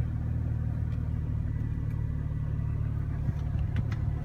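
BMW engine idling steadily, warmed up to about 90 °C coolant temperature, with a few faint clicks near the end.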